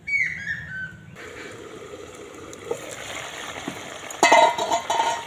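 A short run of high calls falling in pitch, then vegetable curry bubbling in an open metal wok. About four seconds in comes a burst of ringing metal clinks against the pan that lasts about a second.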